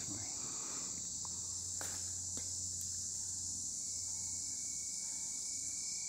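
Steady high-pitched chorus of summer insects, with a couple of faint clicks about two seconds in.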